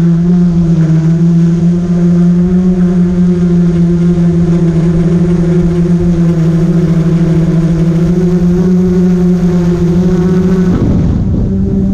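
Multirotor drone's motors and propellers giving a loud, steady whine as it climbs, the pitch wavering briefly near the end.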